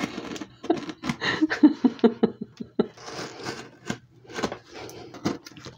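Box cutter blade scraping and slicing along the packing tape of a cardboard box. There is a quick, irregular run of scratches, scrapes and clicks from the blade and the handled cardboard, busiest in the first half.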